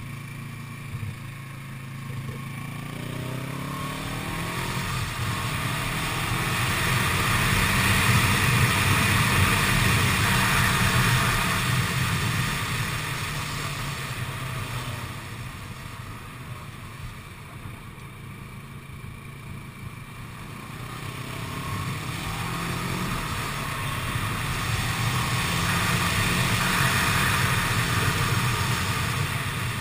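Kawasaki ER-6n's parallel-twin engine pulling up through the revs, easing off and pulling up again, heard from on board the moving bike. Wind rushes past, louder as speed builds.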